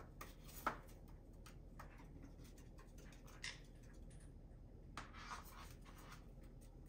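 Conures scuffling on a hard appliance top: faint scratching and rustling of claws, beak and feathers. There is one sharp tap a little under a second in and softer taps about halfway and near the end.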